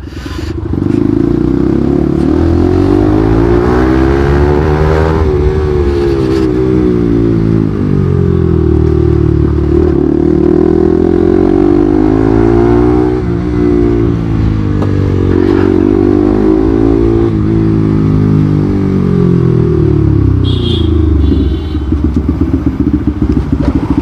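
Bajaj Pulsar NS200 single-cylinder motorcycle engine, heard from the rider's seat, revving up and easing off again and again as the bike accelerates through the gears and rolls off. A short high tone sounds once near the end.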